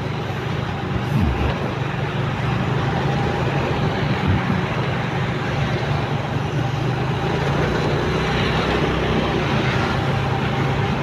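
Motorcycle riding at a steady pace, its engine a low steady hum under wind and road noise, with passing city traffic.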